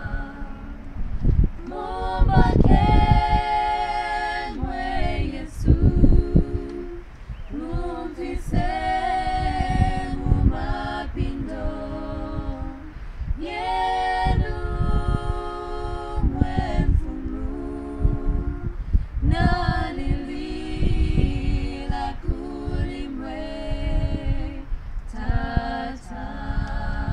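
Group of women singing a Bemba prayer hymn a cappella, several voices together in phrases of a few seconds with short breaths between.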